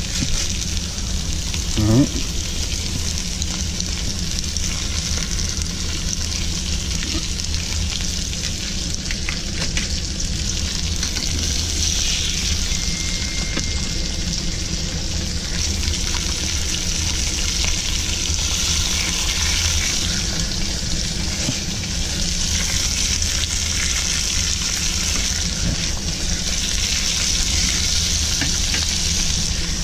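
Olive oil, fresh garlic and shallots sizzling steadily in a hot stainless steel frying pan as seasoned fish fillets are laid in on top.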